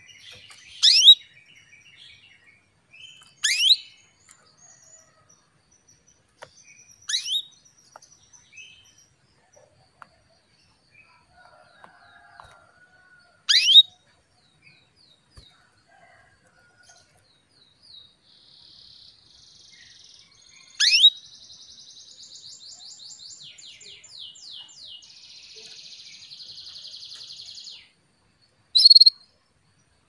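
Female canary calling for a male: six loud, sharp, downward-sweeping call notes a few seconds apart, with a quieter, fast buzzing trill from about 18 to 28 seconds in.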